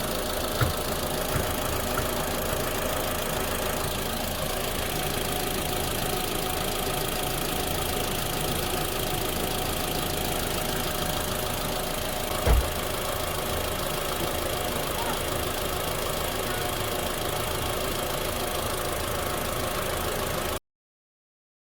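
A 2015 Mitsubishi Lancer's four-cylinder engine idling steadily after a radiator replacement, with one loud thump about halfway through. The sound stops abruptly near the end.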